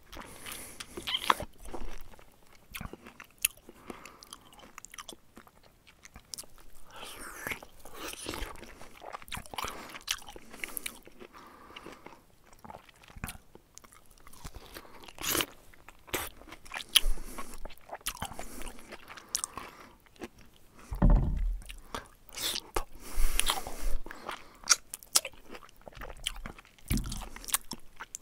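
Close-miked eating sounds: a person biting and chewing, with irregular crunches and wet mouth noises, and a heavier dull thump about three-quarters of the way through.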